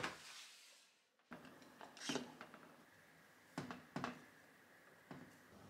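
Kitchen handling sounds: a glass food container knocks against a stainless-steel counter at the start. Then wooden chopsticks click against the glass container as they lift the marinated vegetables, with a light click a couple of seconds in and two more close together a little later.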